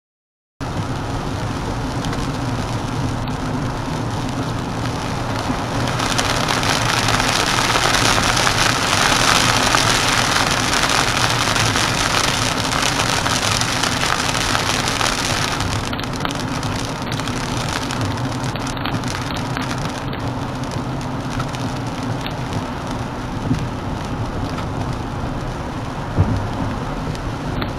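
Heavy rain falling on a moving car, heard from inside the car along with tyre and road noise; the rain grows heavier from about six seconds in and eases again about fifteen seconds in. The sound begins after a brief dropout to silence at the very start.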